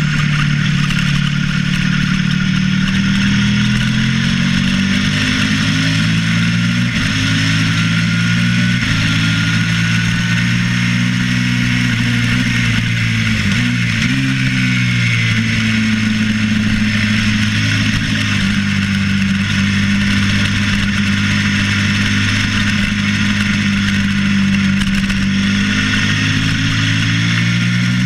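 Suzuki SV650 V-twin racing motorcycle engine under hard acceleration, its pitch climbing and dropping back at each gear change, with a brief dip about halfway through as it slows and shifts down, then holding steady before climbing again near the end. Wind rushes over the onboard microphone throughout.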